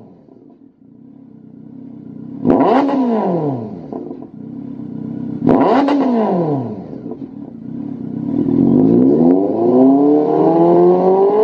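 Honda CB1300's inline-four engine through a Lextek MP4 aftermarket silencer, free-revved while stationary. It idles at first, then gives two sharp throttle blips about three seconds apart. Near the end a slower rev climbs steadily.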